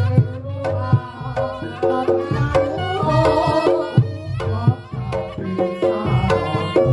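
Reog Ponorogo tabuhan: a traditional percussion ensemble playing, with quick drum strokes over deep low beats and a pitched melody line above.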